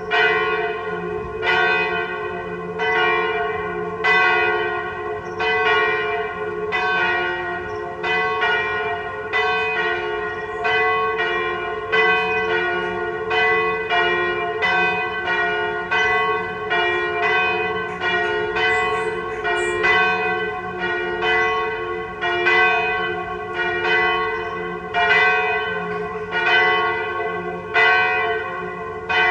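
Two swinging church bells ringing together in a partial peal: the 983 kg Sint-Martinus bell tuned to F (cast 1950 by Michiels of Tournai) and the 771 kg Sint-Michaël bell tuned to G-flat (cast 1836 by Van Aerschodt of Leuven). Their strokes interleave unevenly, roughly three every two seconds, each one ringing on into the next.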